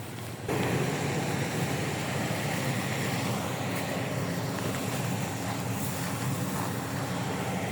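Rice harvester's engine running steadily under load, jumping suddenly louder about half a second in.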